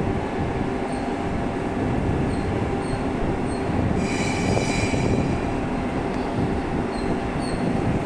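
Steady, loud rumble of a train at a station platform, with a brief high-pitched squeal of about a second near the middle.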